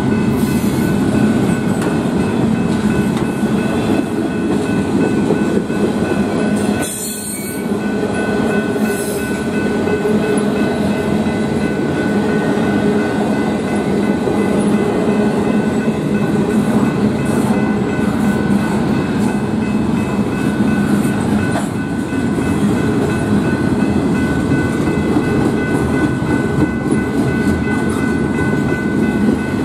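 Double-stack intermodal freight train rolling past at a grade crossing: a steady loud rumble and clatter of the wheels on the rails, with steady high-pitched ringing tones above it. The sound drops briefly about seven seconds in.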